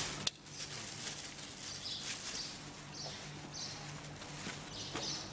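Quiet handling noise: a sharp click about a third of a second in, then several brief soft rustles, as of plastic plates and a plastic food container being handled, over a low steady hum.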